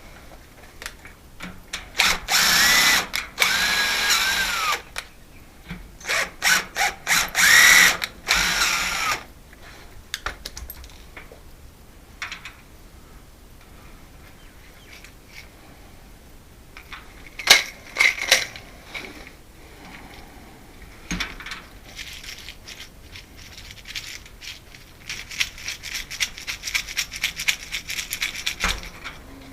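Power drill running in a few bursts, its motor pitch dipping and recovering under load, with clicks and rattling of hardware in between.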